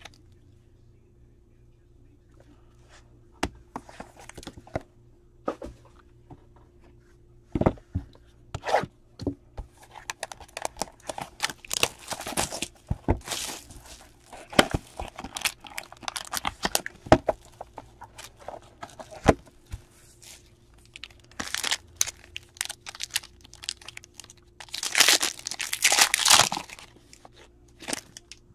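Hands tearing and crinkling the plastic wrap and packaging of a trading-card box, with scattered clicks and rustles of cardboard, sleeves and cards. A longer burst of tearing comes near the end.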